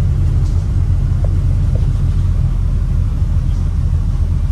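Steady low rumble of a moving school bus, engine and road noise heard from inside the bus cabin.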